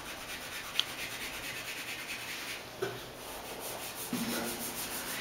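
A drawing stick rubbing and scratching across paper in quick, rhythmic back-and-forth shading strokes, laying in the cast shadow of a figure drawing.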